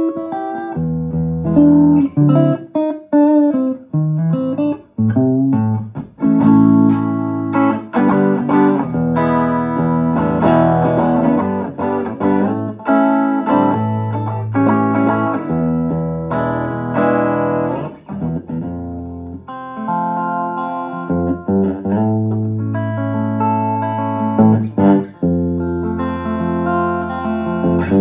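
Electric guitar played through a Vermona Regent 300 K: strummed chords and single notes that ring on, in phrases with brief breaks between them.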